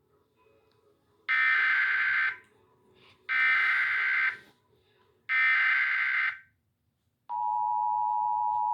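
Emergency Alert System SAME header: three buzzy data bursts of about a second each, spaced evenly. About seven seconds in, the EAS two-tone attention signal starts and holds steady.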